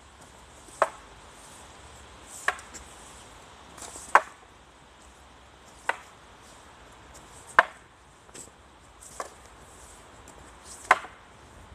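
Two long wooden staffs clacking together in a paired staff drill: seven sharp knocks, one about every one and a half to two seconds.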